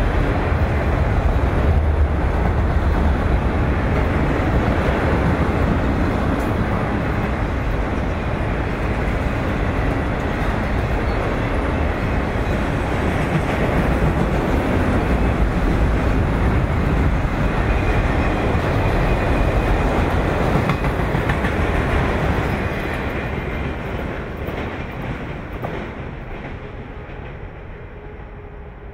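Norfolk Southern freight train of autorack cars rolling past, a steady rumble and rattle of steel wheels on rail. From about three quarters of the way in, the sound fades as the last cars pass and draw away.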